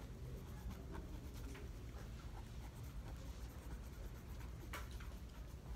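Faint writing sounds, light scratches and taps, over a steady low hum in the room.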